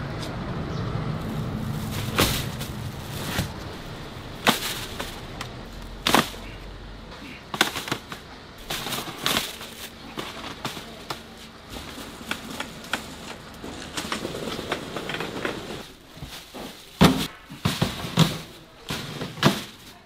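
Sharp knocks and clatter at irregular intervals, some in quick clusters, over a low background rumble that fades after the first couple of seconds.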